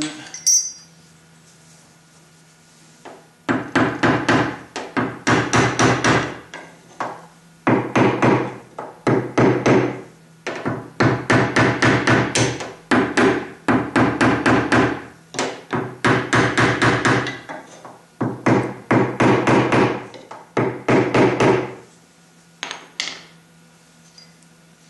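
Quick runs of light hammer taps on a nylon knockdown tool against a 2009 Kia Sportage's steel door skin. Each run lasts a second or two, with short pauses between. This is the tap-down stage of paintless dent repair, knocking down the high metal around a glue-pulled dent.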